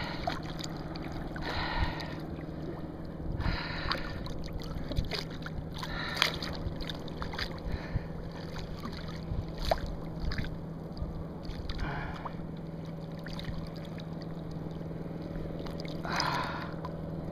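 Water splashing and sloshing in short bursts every few seconds as a hooked shark moves at the surface beside a kayak, over a steady low hum.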